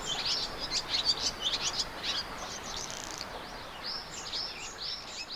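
Small songbirds singing a rapid run of short, repeated high notes over the steady rush of a mountain stream.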